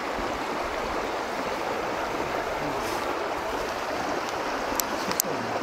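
Steady rushing of running water, with a few short sharp ticks near the end.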